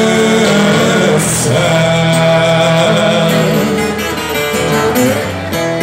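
Live sertanejo music: acoustic guitars and an accordion playing, with a man singing a long held note of the chorus.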